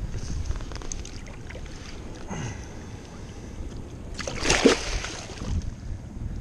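Wind rumbling on the microphone, with one brief loud burst of noise about four and a half seconds in.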